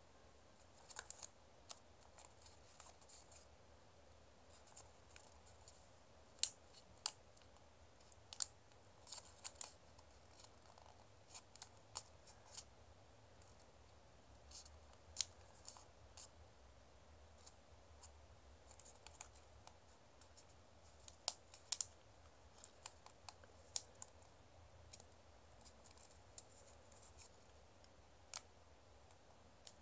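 Origami paper being folded and creased by hand: scattered soft crackles and sharp little clicks of stiff paper, irregular, with a few louder snaps here and there.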